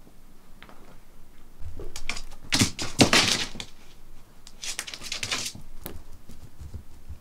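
A small dog's claws clicking and scrabbling on the floor, in two bursts of rapid, sharp clicks about two seconds apart.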